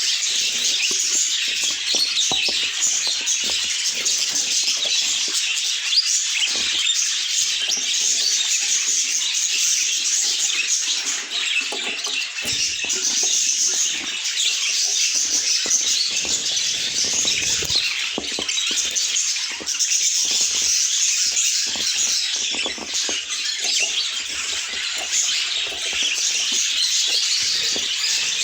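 Budgerigars chattering and warbling without a break, a dense stream of quick chirps and twitters.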